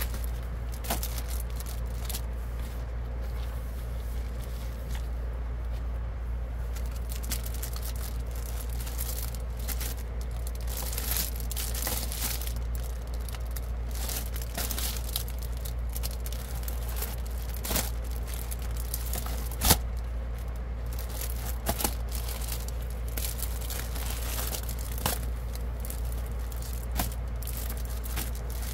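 Plastic magazine sleeves and bubble-mailer packaging crinkling and rustling as they are handled, in irregular short crackles with one sharper snap about 20 seconds in, over a steady low rumble.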